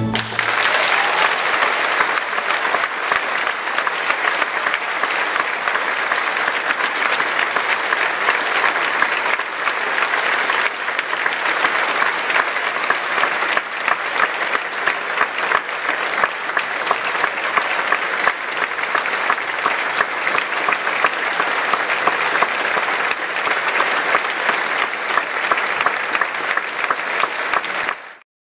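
Audience applauding steadily, a dense wash of many hands clapping that cuts off abruptly near the end.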